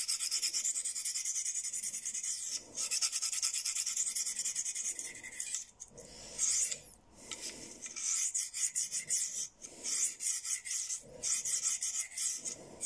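Steel knife edge scraping across a fine DMT diamond sharpening plate in light, even strokes: a fast run of short strokes, a break about five and a half seconds in, then slower separate passes. This is the stage of sharpening that transfers the burr to the other side of the edge.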